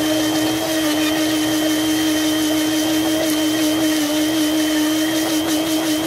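Small personal blender running steadily at a constant pitch, its motor whirring as it purées a thin liquid stir-fry sauce.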